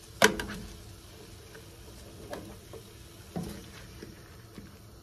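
Sliced roast beef, onions and green peppers sizzling faintly on a griddle, with a sharp click of a spatula against the pan about a quarter second in and a few softer knocks later as the food is stirred.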